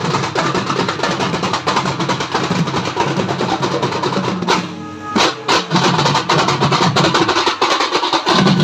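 Loud music driven by fast, dense drumming. About four and a half seconds in, the drums drop out for a moment under a held tone, then come back in with sharp hits.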